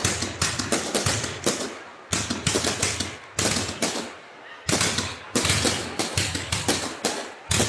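Fireworks going off in rapid clusters of sharp bangs and crackles, with a short lull a little past the middle before another dense run.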